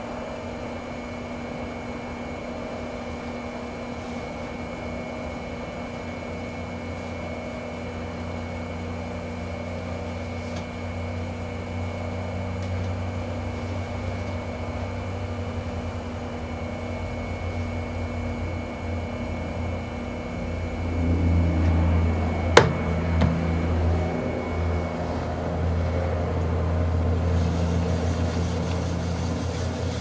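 Electric potter's wheel running with a steady motor hum and a faint regular pulse. About two-thirds through the hum grows louder and heavier, with a single sharp knock soon after.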